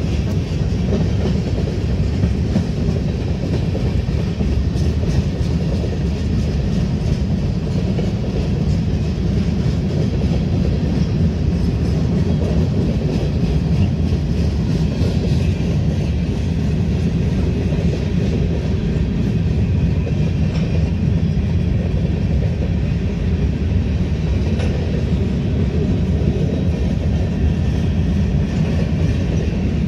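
Freight cars of a BNSF manifest train rolling past: a steady low rumble of steel wheels on the rails, with wheel clatter.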